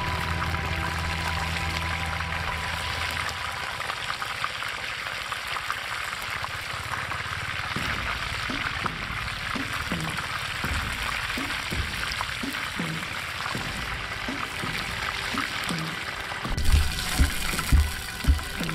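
Chicken pieces deep-frying in a pan of hot oil: a steady sizzle with many small pops. Near the end, a few dull thumps.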